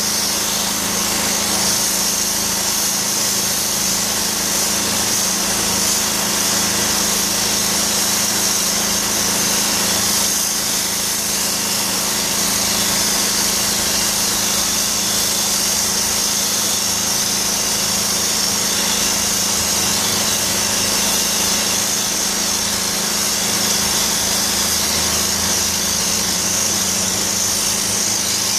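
DOFF steam-cleaning lance hissing steadily as its jet of high-temperature steam blasts brickwork, over a steady mechanical hum from the steam unit.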